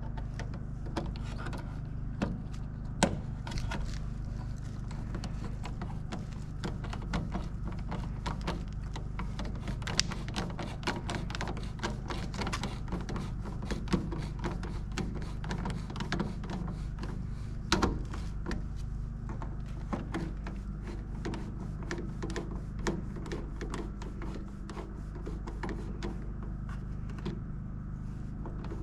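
Hand work on an electrical outlet: many irregular small clicks, taps and knocks of tools, wire and the device being handled, with a few sharper knocks, over a steady low hum.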